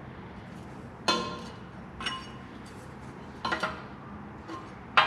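Metal exhaust pipe pieces being handled and set down: a handful of sharp metallic clinks, each with a short ring, spaced about a second apart.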